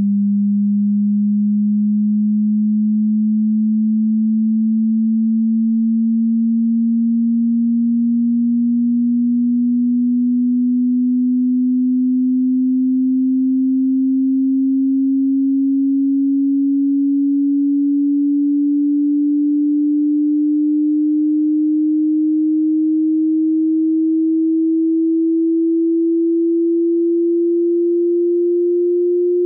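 A pure electronic sine-wave test tone sweeping slowly and steadily upward in pitch, from about 200 Hz to about 350 Hz, at an even, constant loudness.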